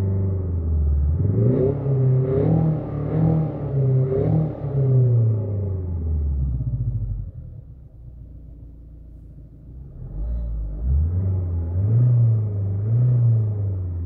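Renault Mégane 4 engine revved repeatedly while standing still, heard inside the cabin with the RS Sound Effect engine-sound simulation (Alpine A110 profile) playing through the car's speakers: a rising and falling engine note over several quick revs, a lull of about three seconds, then more revs near the end.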